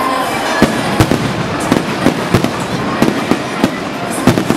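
Aerial fireworks exploding: an irregular run of sharp bangs over a constant crackle and rumble. The loudest bangs come about a second in and just before the end.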